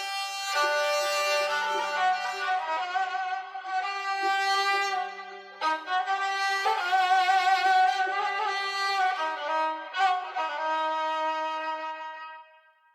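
Background music: a slow violin melody of long, sustained notes with vibrato, fading out near the end.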